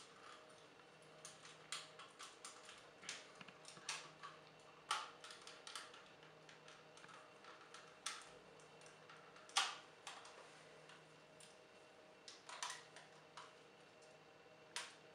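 Hard plastic clicks, snaps and light rattles of a Transformers action figure being handled and its parts moved during transformation. The clicks are scattered and irregular, with louder snaps about five seconds in and near ten seconds.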